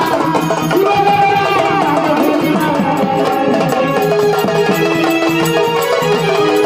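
Marathi gondhal folk music: a drum beat keeps steady time under an organ melody of long held notes.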